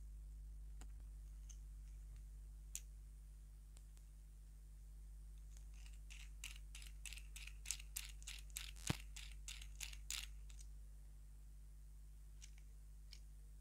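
Small plastic toy car parts clicking and snapping as they are pressed together and turned in the hands: a few scattered clicks, then a quick run of sharp clicks in the middle, about four a second, over a faint steady hum.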